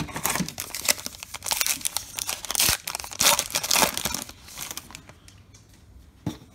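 A 2021 Topps Allen & Ginter card pack wrapper being torn open and crumpled by hand: a dense crinkling crackle for about five seconds, then a single short tap near the end.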